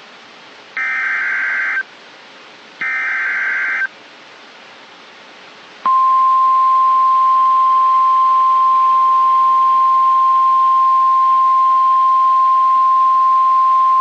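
NOAA Weather Radio Emergency Alert System signal: two short bursts of the SAME header's digital data tones, about a second each with a second of radio hiss between, encoding a severe thunderstorm warning. About six seconds in, the steady 1050 Hz warning alarm tone begins, signalling that a warning message follows.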